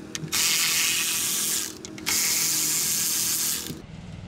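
Cordless electric ratchet running in two bursts of about a second and a half each, with a short pause and light clicks between them. It is spinning out the 10 mm bolts that hold the ignition coils.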